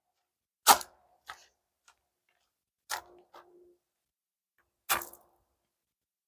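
Firewood work: three sharp knocks about two seconds apart, each followed by a fainter small knock. The later hits leave a brief ringing note.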